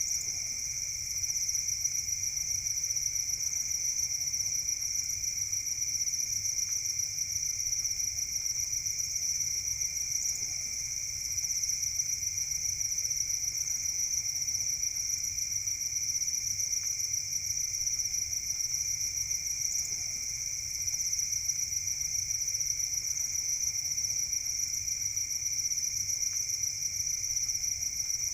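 Crickets kept in a cricket farm, chirping steadily together in an unbroken high-pitched trill.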